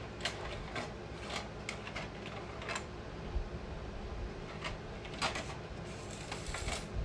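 Irregular light clicks and taps of small hardware and a plastic organizer box being handled, over a low steady hum.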